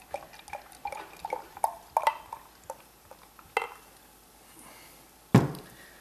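Tripel poured fairly aggressively from a bottle into a tulip glass: irregular glugs, splashes and foam crackle for about three and a half seconds. Then a single knock about five seconds in, likely the bottle being set down.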